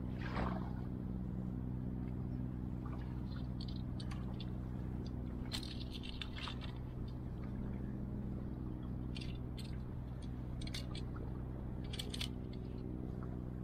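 A steady low engine drone, with scattered light clicks and scrapes from fishing tackle being handled.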